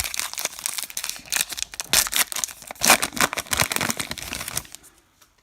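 Plastic wrapper of a trading card pack being torn open and crinkled by hand: dense, irregular crackling that stops about four and a half seconds in.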